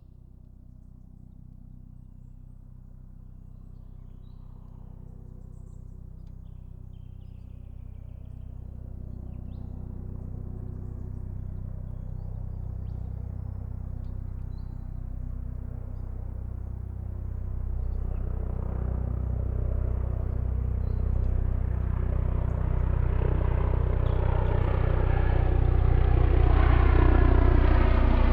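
Helicopter approaching from a distance, its rotor beat growing steadily louder throughout.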